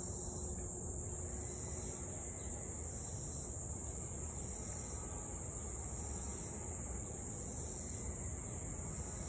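Steady, high-pitched chorus of insects, swelling and dipping slightly about once a second, over a low background rumble.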